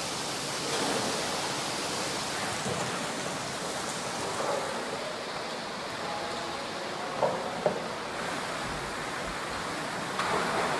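Steady rush of running and splashing water in fish hatchery tanks, with two light knocks about seven seconds in.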